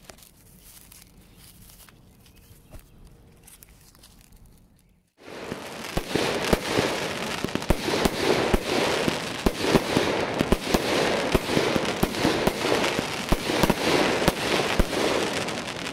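Aerial fireworks bursting overhead: from about five seconds in, a sudden, dense crackling packed with many sharp pops, after a few faint seconds.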